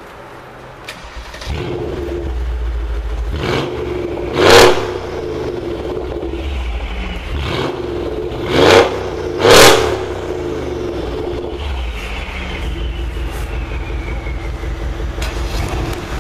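Mercedes C63 AMG's 6.2-litre V8 idling through its exhaust, blipped to a small rev and then three sharp, loud revs about four and a half, eight and a half and nine and a half seconds in, each rising and dropping straight back to idle.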